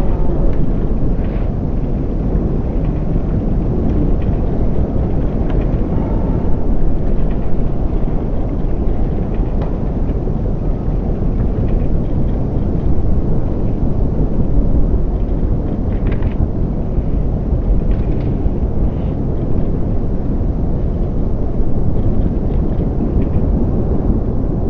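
AH-64 Apache attack helicopter hovering low, its main rotor and twin turboshaft engines making a loud, steady rumble.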